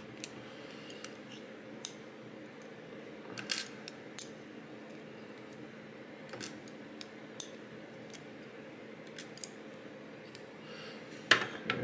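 Small metal lock pins from a disassembled pin-tumbler lock clicking lightly as they are handled and set down in a tray, in a dozen or so scattered single clicks over a faint steady hum.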